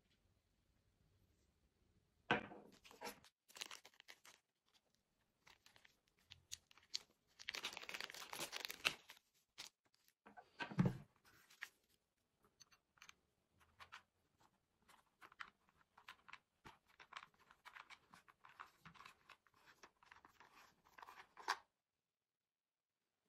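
Handling noises: scattered clicks and rustling, with a longer rustle about eight seconds in, a knock about eleven seconds in and a sharper click near the end.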